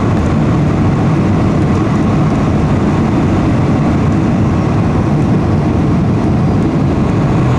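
Steady, loud, low rumble inside an airliner's passenger cabin as the plane rolls along the runway after landing: engine and rolling noise together.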